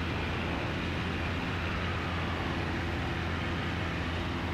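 Cessna 177RG Cardinal in flight, its four-cylinder Lycoming engine and propeller giving a steady drone mixed with rushing airflow noise, with no change in pitch or level.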